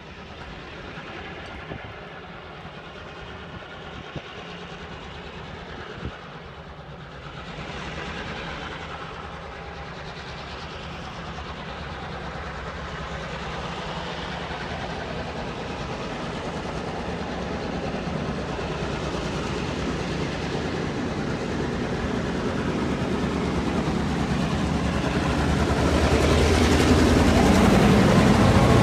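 A lash-up of four diesel-electric locomotives hauling a container train, approaching and growing steadily louder. The engines' throb swells sharply near the end as the leading locomotives pass close by.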